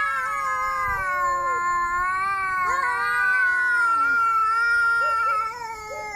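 Angry cat yowling: one long, drawn-out caterwaul whose pitch wavers slowly up and down, weakening near the end.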